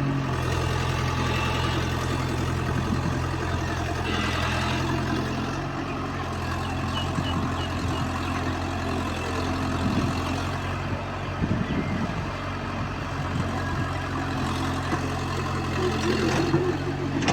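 EX70 excavator's diesel engine running steadily, with a few knocks and clatters about ten to twelve seconds in.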